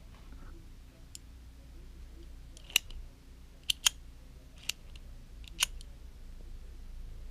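A handful of sharp, short clicks as the finished metal-fitted steampunk pen is handled and turned in the fingers: one faint click about a second in, then five crisp ones spread over the next few seconds, two of them in quick succession.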